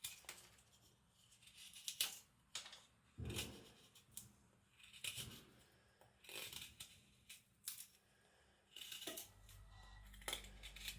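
A freshly sharpened knife slicing through paper in a sharpness test: a series of faint, short cutting strokes, roughly one a second.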